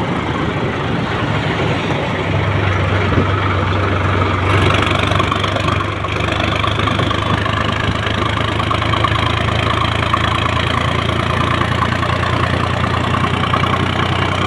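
Vehicle engine idling steadily, with a constant low hum that settles in about two seconds in.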